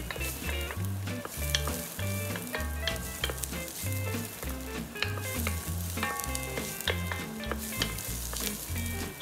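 Minced garlic sizzling in hot oil in an enamelled cast-iron pot, stirred with a wooden spatula that gives scattered light scrapes and taps against the pot. Soft background music with a bass pulse plays underneath.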